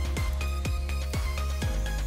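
Electronic background music with a steady kick drum about twice a second over a held deep bass, with a faint high sweep rising through it.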